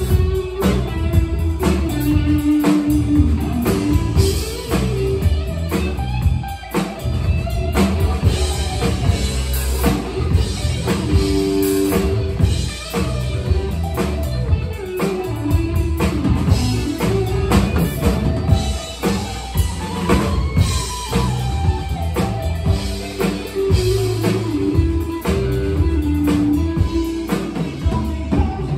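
Live rock band playing: Stratocaster-style electric guitar over a drum kit.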